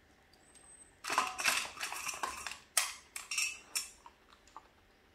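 Clinking and rattling of a dog's head collar and leash being handled, in a string of short bursts from about a second in until about four seconds in.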